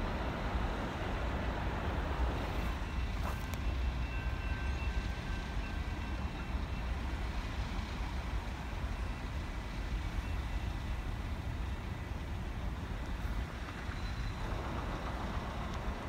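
Steady low rumble of a freight train's cars rolling away down the track. A faint high tone is held for a few seconds, starting about three seconds in.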